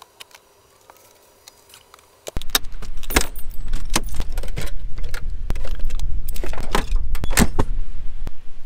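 A few faint clicks, then from about two seconds in, wind rumbling on the microphone with a run of sharp metallic jangling and clicking, as of metal tools or keys being handled at an open storage compartment.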